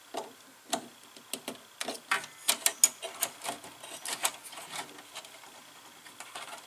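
Small, sharp, irregular clicks and ticks, busiest around the middle, from a wire being worked into a DIN-rail terminal strip by hand.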